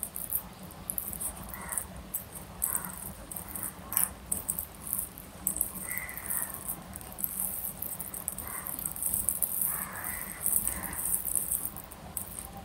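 Close-up eating sounds: fingers squishing and mixing soft bhuna khichuri on a steel plate, and chewing with small wet mouth clicks, an irregular run of little ticks and smacks.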